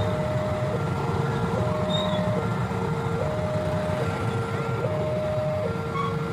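Railway level-crossing warning alarm sounding, an electronic two-tone signal switching between a higher and a lower tone about every 0.8 seconds, over a steady low rumble.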